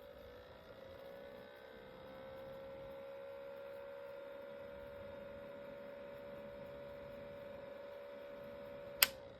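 Small humidifier running with a steady pitched hum that wavers and settles over the first couple of seconds, with a sharp click near the end.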